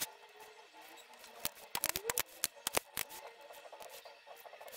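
Irregular sharp clicks and taps, thickest between about one and a half and three seconds in, from a soldering iron tip and fingers working over the solder joints of an LED TV's power-supply circuit board. A few faint rising chirps sound in the background.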